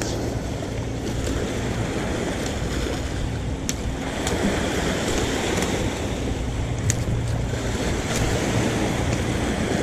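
Small waves washing onto a rocky pebble shore, with wind buffeting the microphone. A few sharp clicks stand out, the clearest a little under 4 s in and about 7 s in.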